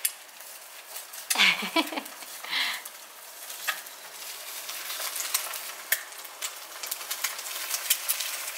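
Four eggs frying in oil in a nonstick pan, a steady sizzle with scattered clicks and scrapes of a metal spatula against the pan. A short voice sound comes about a second and a half in.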